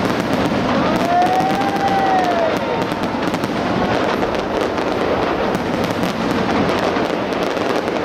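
Fireworks display going off, a dense run of bangs and crackles with no let-up, and a whistle rising and falling in pitch about a second in.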